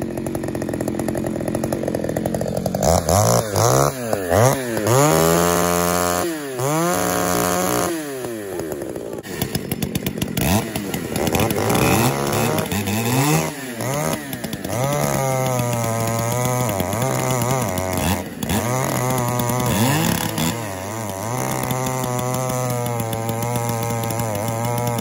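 Stock Pioneer P52 two-stroke chainsaw idling, then revved up and down several times, then held at a steady high speed as it cuts into a large hardwood log from about fifteen seconds in. The saw is on test after its high-speed jet was turned up; the owner calls it struggling in the cut.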